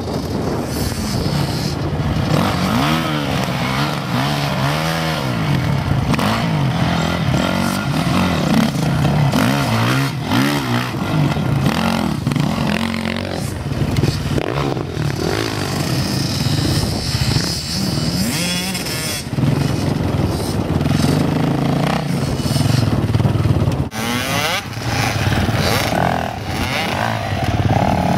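Dirt bike engines revving hard and dropping back again and again, the pitch rising and falling as the bikes are ridden and wrestled through tyre obstacles.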